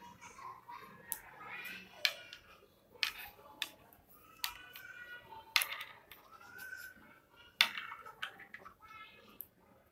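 Metal knitting needles clicking and tapping irregularly as strips of saree fabric are knitted, with sharp clicks every half second to second.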